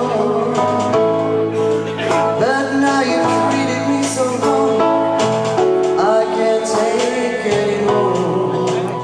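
A woman singing a slow ballad into a microphone, amplified through a PA, over instrumental accompaniment.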